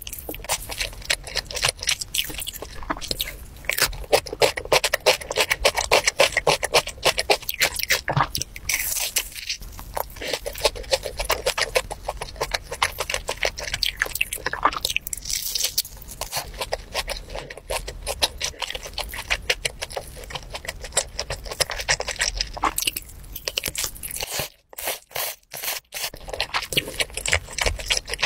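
Close-miked eating: chewing and biting into sticky, sauce-glazed grilled chicken, a dense run of wet clicks and crunches. There are a few brief dropouts near the end.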